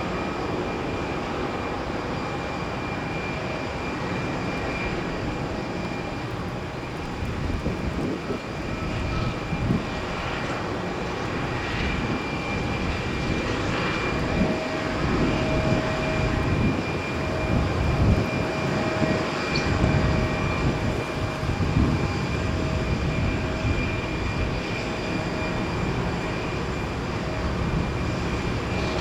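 Tecnam P2010 TDI light aircraft's diesel engine and propeller droning in flight, growing louder around the middle as the plane comes closer, then easing off.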